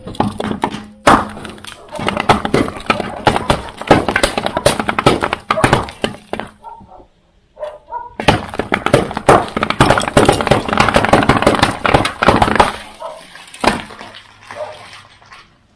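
Aluminium drink cans crushed one after another under a slowly rolling car tyre: dense crunching and crackling of crumpling metal as the cans burst. It comes in two long runs with a short pause between, then one last loud crunch near the end.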